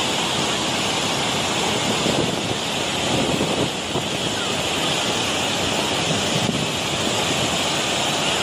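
Reservoir overflow water pouring down a wide stepped spillway: a steady, loud rushing.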